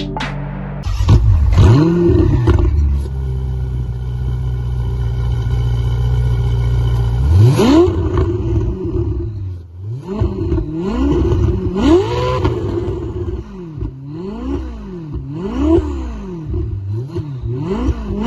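Ferrari 488 GTB's 3.9-litre twin-turbo V8 starting about a second in with a brief rev flare, then settling into a steady idle. It is then revved several times, with a quick run of short throttle blips near the end.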